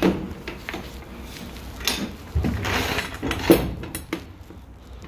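Scattered knocks, clunks and rattles inside the empty cargo box of a box truck with a wooden floor. The loudest is a sharp knock about three and a half seconds in.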